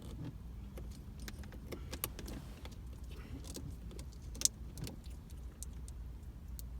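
Scattered light clicks and rattles of plastic interior console trim being handled and popped loose, with one sharper click about four and a half seconds in, over a steady low hum.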